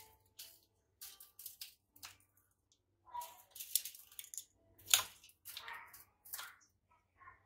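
Hand work on a potted bonsai: scattered short clicks and rustles of tools, wire and soil being handled, the loudest a sharp click about five seconds in.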